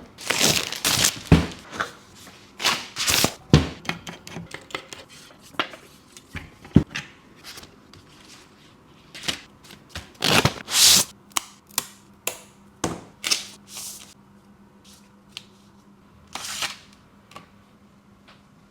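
Packaging of a mechanical keyboard being handled and opened by hand: irregular rustling and sliding swishes of box and wrapping, with sharp clicks and knocks as parts are set down.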